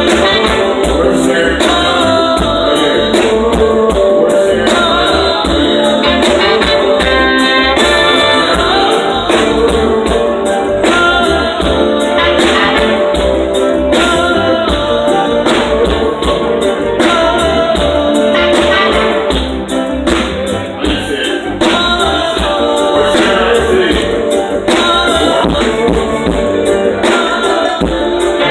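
Live reggae band playing through a large PA during a sound check, with a voice singing over a steady beat.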